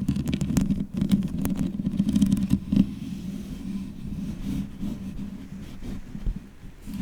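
Long fingernails scratching and rubbing directly on a microphone: a close, rumbling scrape with scattered sharp nail clicks, busier in the first three seconds and softer after.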